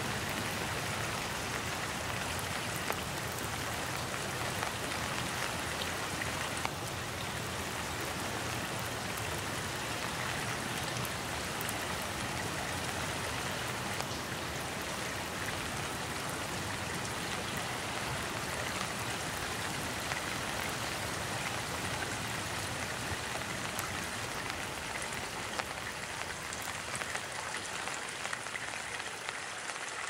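Steady rain falling on trees, ground and water, with the water of a small stone-channelled stream trickling over its low cascades beneath, and now and then a single drop ticking close by.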